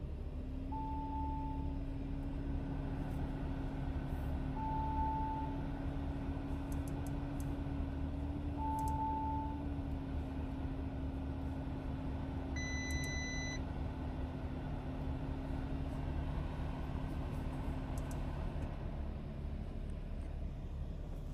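Steady low hum inside a Lamborghini Urus cabin with a steady tone held under it, broken by three short electronic beeps about four seconds apart and a single higher chime about 13 seconds in, with a few faint clicks.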